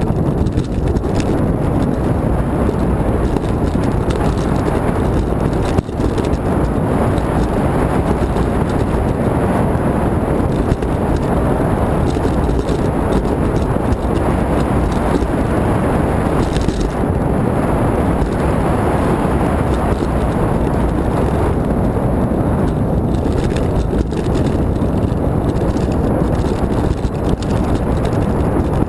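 Ride noise from a handlebar-mounted action camera on a mountain bike going fast down a rough dirt and gravel track: wind buffeting the microphone mixed with the steady rumble and rattle of the bike over loose stones.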